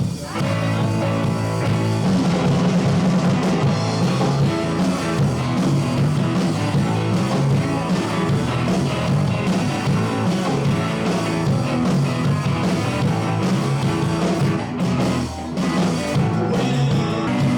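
A rock band playing live, with electric guitar and drum kit.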